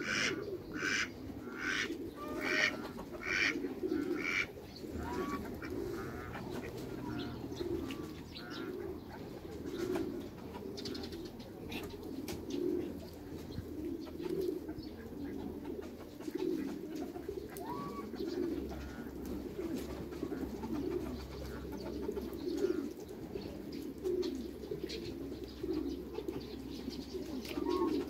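Domestic pigeons cooing steadily in low, pulsing phrases. In the first few seconds a run of short, sharper bird calls comes at about two a second.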